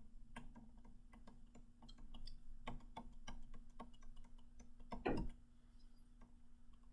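Faint, irregular clicks and taps of a stylus on a drawing tablet during quick shading strokes, a few per second, over a faint steady hum. A brief louder sound comes about five seconds in.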